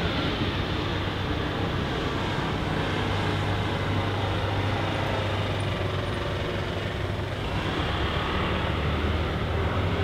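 Steady city traffic rumble: a continuous low hum of road vehicles with no single event standing out.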